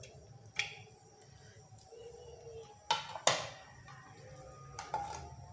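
Ceramic plates clinking: a few short knocks, the loudest pair about three seconds in as one plate is set down on another.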